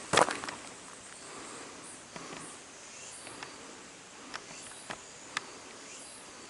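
One footstep on the trail just after the start, then a steady soft hiss with a few faint sharp ticks a few seconds in.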